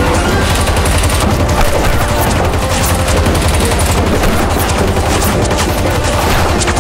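Rapid automatic fire from a Nerf foam-ball blaster, shots coming in a fast, unbroken stream, over background music.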